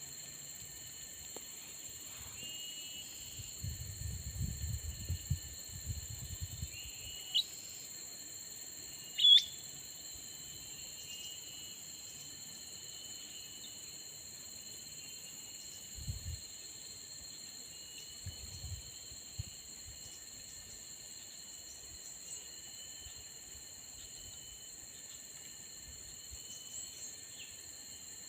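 Steady high-pitched drone of insects, with small birds calling faintly over it. Two sharp rising chirps come about seven and nine seconds in, the second being the loudest sound. There are a few low rumbles of handling or wind.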